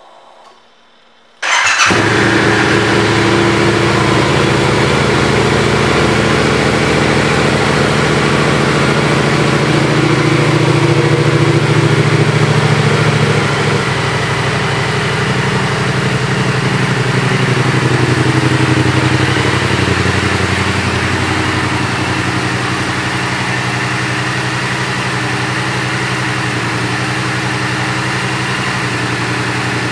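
A 2016 Yamaha FZ-07's 689 cc crossplane parallel-twin engine, fitted with a Yoshimura aftermarket exhaust, starts suddenly about a second and a half in, then idles steadily.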